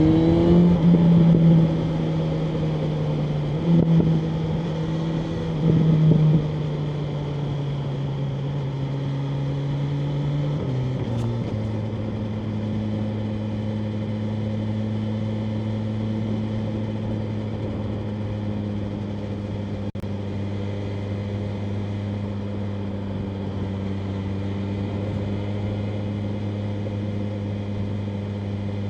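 BMW M1000R Competition's inline-four engine running under way: it rises in pitch at first, then holds steady revs with brief louder throttle surges at about 1, 4 and 6 seconds. About 11 seconds in, the revs drop to a lower, steady cruising note that carries on with a constant rush of noise behind it.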